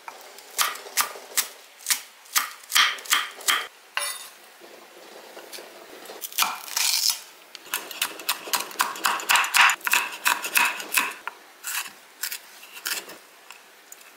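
Chef's knife chopping green onion and green chilies on a wooden cutting board: sharp knocks of the blade striking the board, about two or three a second at first, then, after a short pause, a faster run of chopping.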